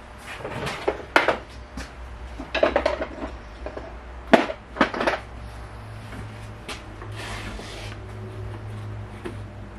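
Hand tools and loose interior parts clinking and knocking against metal in a car's cabin as the interior is taken apart: a burst of sharp clatters in the first half, then a steady low hum from about six seconds in.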